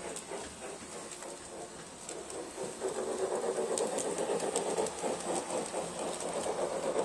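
Hartland model of the Ernest S. Marsh locomotive running on its track: a steady whir of its electric motor and gears with a rhythmic clicking of wheels on the rails. It grows louder about three seconds in as the locomotive passes close.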